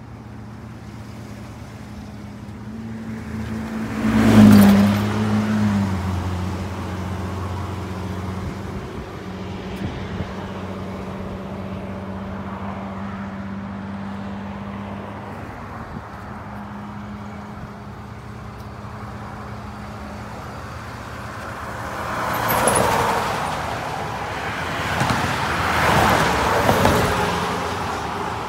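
Highway traffic: vehicles passing by, the loudest about four seconds in and two more near the end, over a steady low engine hum.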